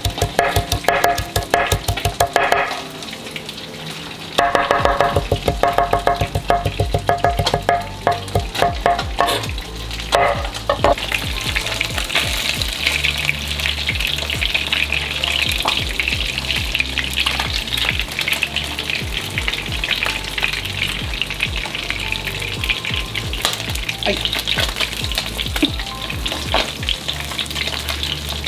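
A knife chopping cilantro in quick strokes on a wooden cutting board, in two runs with a short pause near three seconds, stopping about ten seconds in. Then panko-breaded cubera snapper fillets sizzling steadily as they fry in oil in a pan, with occasional scrapes of a spatula.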